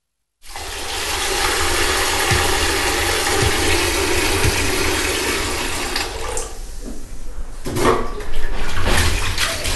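Cartoon sound effect of hand-washing laundry: steady splashing, running water, then, about two-thirds of the way in, a run of rough rubbing and knocking strokes as wet clothes are worked with a wooden stick.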